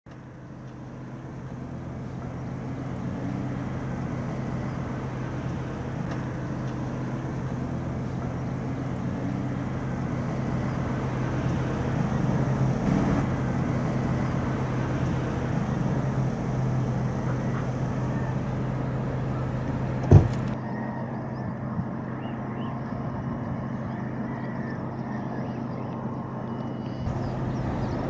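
Steady rumble of distant road traffic, fading in over the first few seconds, with a single sharp knock about twenty seconds in.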